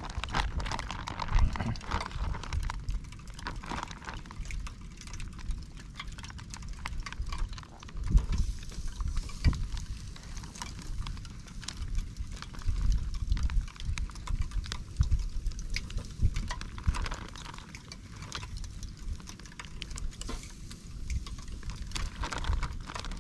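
Charcoal grill: scattered, irregular clicks and knocks over a faint hiss, with an uneven low rumble underneath.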